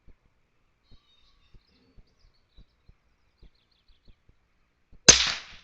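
Mostly quiet, with faint bird chirps and a few soft low taps. Near the end comes a sudden loud burst of noise that dies away over about half a second.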